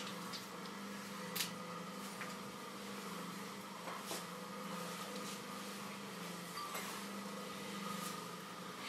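Potter's wheel motor humming steadily as it spins a vase of wet clay being shaped by hand, with a few short clicks, the loudest about a second and a half in.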